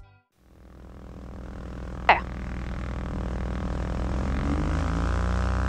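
Twin engines of a Piper Seneca III being brought up to takeoff power, the engine and propeller sound growing steadily louder and rising in pitch. A brief sharp chirp sounds about two seconds in.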